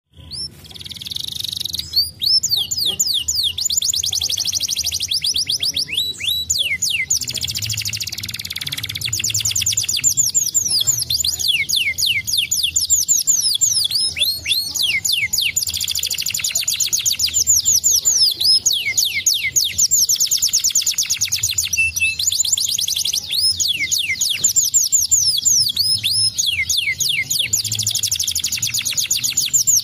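Domestic canary singing nonstop, a long song of fast trills and rolls made of rapid, high, falling notes repeated many times a second, with only brief breaks between phrases.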